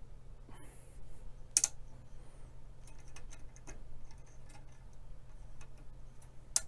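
Clicks from the front-panel switches and knobs of a Trio CS-1566A analog oscilloscope being set: a sharp click about a second and a half in, a run of lighter clicks around three to four seconds, and another sharp click near the end, over a low steady hum.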